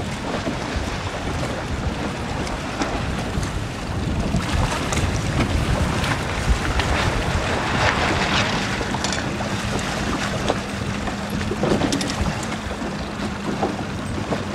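Wind buffeting the microphone over the splash and slap of choppy water against a hull. A faint steady hum comes in about halfway through.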